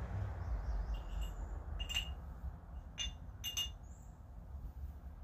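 Small metal parts clinking as they are handled: about five short, ringing metallic taps, the loudest about two seconds in and a quick pair later. A low steady hum runs underneath.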